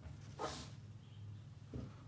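Faint handling noise of a hex key and a plastic rifle mount clamp being picked up and positioned on a rigid MOLLE panel: a brief scrape about half a second in and a soft knock near the end, over a low steady hum.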